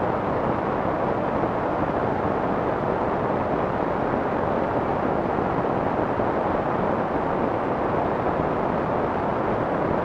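Steady soft white noise: an even, unchanging hiss, strongest in the middle range and muffled at the top.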